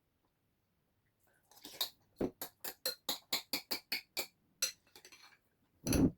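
Tableware clinking: a quick run of about a dozen sharp clinks, roughly five a second, then one louder knock near the end. The audio is sped up to double speed.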